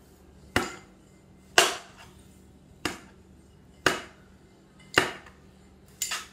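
Six sharp hammer blows, about one a second, each with a short ringing tail.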